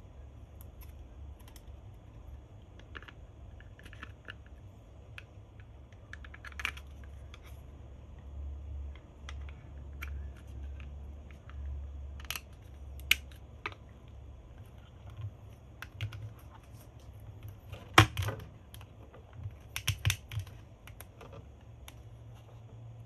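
Scattered light plastic clicks and taps as a 1/7-scale figure is handled and its feet are pressed onto the pegs of its plastic display base, with one sharper click about three-quarters of the way through and a quick cluster of taps just after.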